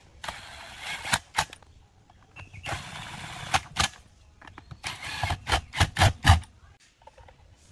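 DCA 20V cordless impact driver running screws into a chainsaw's plastic top cover in three short runs, each ending in a few sharp hammering hits.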